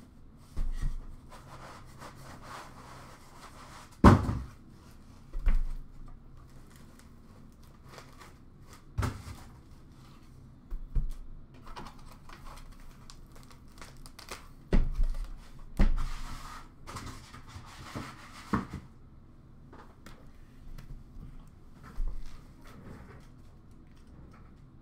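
Cardboard boxes and foam packing being handled while a hobby box is unpacked from a shipping carton: scattered knocks and thunks of boxes being moved and set down, with rustling and crinkling in between. The loudest knock comes about four seconds in.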